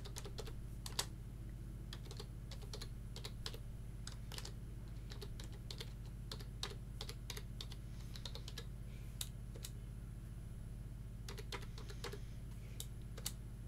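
Computer keyboard typing: quick, irregular runs of key clicks, thinning to a short pause about ten seconds in, over a steady low hum.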